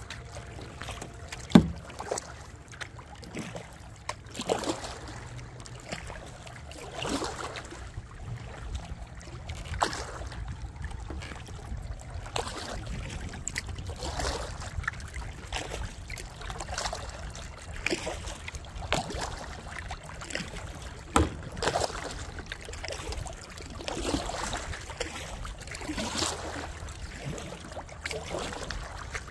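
Paddle strokes in lake water beside a canoe: a soft splash and swish about every two and a half seconds, in a steady rhythm. A single sharp knock comes about one and a half seconds in.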